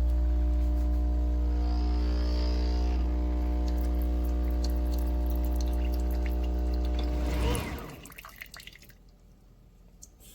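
Nespresso Vertuo Pop+ coffee machine brewing: a loud, steady mechanical hum that cuts off about seven and a half seconds in, followed by faint drips and clicks as the last of the coffee runs into the cup.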